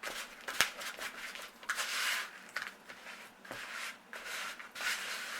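A utensil stirring and scraping butter and sugar being creamed in a mixing bowl by hand, in irregular strokes, with a sharp click about half a second in.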